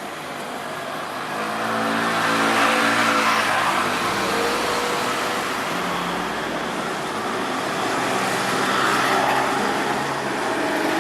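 Road vehicle engines passing close by, getting louder about two seconds in and staying at that level.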